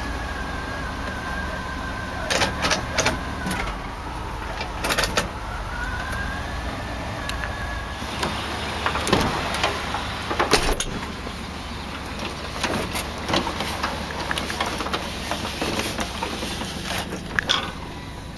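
Scattered clicks and knocks from handling the cab interior and door of a 1989 GMC Sierra, in clusters about two to three seconds in, around five seconds, and between nine and eleven seconds. They sit over a steady low rumble.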